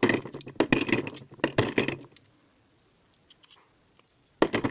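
Small metal parts and tools clinking and rattling against each other as they are handled, in a rapid clatter for about two seconds and again near the end.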